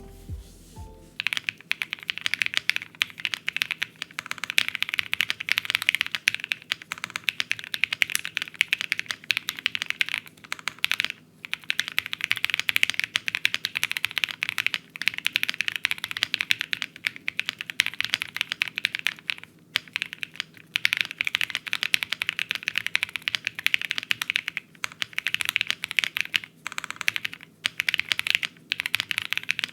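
Custom High65 mechanical keyboard being typed on quickly, with lubed and filmed Cow UHMWPE switches on a gasket-mounted polycarbonate plate. The typing comes in long runs of dense keystrokes broken by a few short pauses, and starts about a second in as background music stops.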